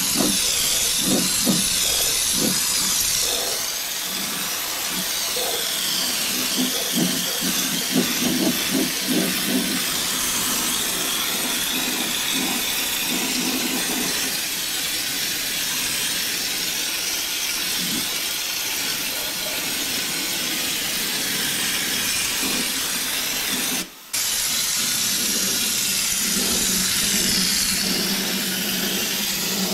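Compressed-air schutz gun spraying tar-based underbody sealant: a steady loud hiss of air, with an uneven low sputter during the first ten seconds or so. The hiss cuts out for a moment a little after twenty seconds in, then starts again.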